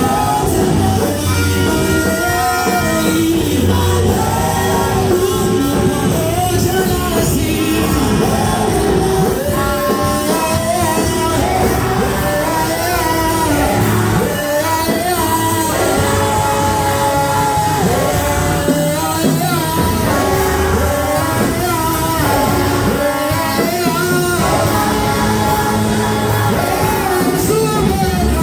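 Live praise and worship music: voices singing over an amplified band with a steady low beat, with shouts mixed in.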